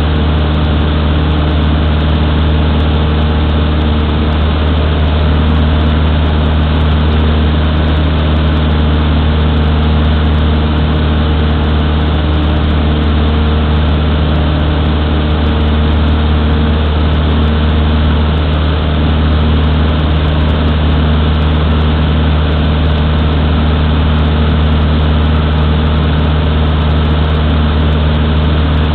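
Cessna 152's four-cylinder Lycoming O-235 engine and propeller running steadily in flight, heard loud from inside the cabin.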